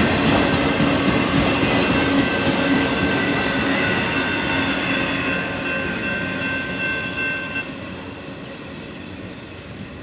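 Long CSX freight train's cars rolling past on steel wheels, with a steady high-pitched wheel squeal that stops about three-quarters of the way through. The rumble fades steadily as the train moves away.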